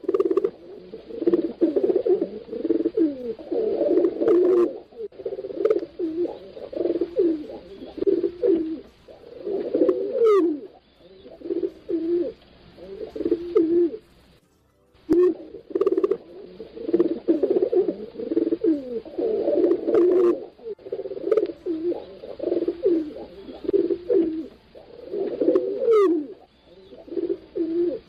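Pigeons cooing: a continuous run of low, rolling coos, one after another, with a short break about halfway through before the cooing starts again.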